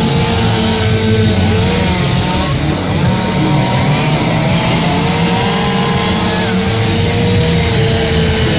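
Chainsaw running at high revs while carving wood, its pitch rising and falling as it cuts.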